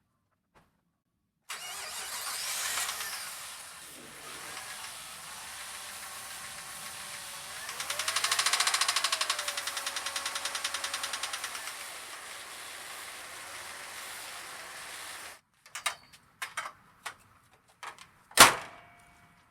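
Jeep Grand Cherokee 4.0-litre inline-six running with a rapid knocking tick, which the owner takes for worn rod bearings. It is revved briefly in the middle and then cuts off suddenly, followed by a few clicks and one sharp knock.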